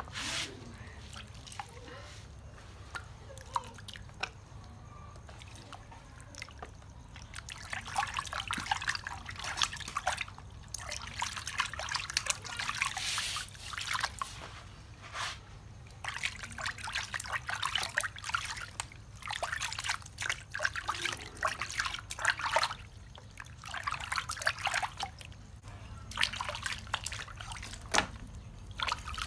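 Water splashing and trickling in a plastic basin as a baby monkey is washed by hand. The first several seconds are fairly quiet, then irregular splashes and dribbles follow one after another.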